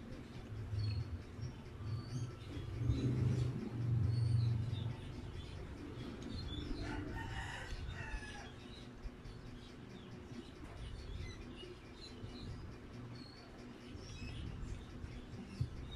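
Closed-mouth chewing of soft ham, with low mouth noises loudest in the first five seconds. Birds chirp faintly in the background, with one longer call about seven seconds in.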